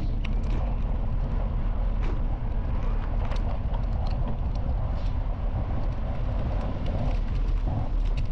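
Bicycle tyres rolling over a gravel path: a steady low rumble with small clicks and rattles scattered through it.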